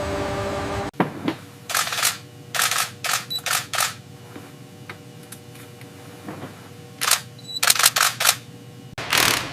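A steady mechanical hum cuts off abruptly about a second in. It is followed by groups of short, sharp mechanical clicks and hisses in quick runs, with a quieter gap of about three seconds in the middle.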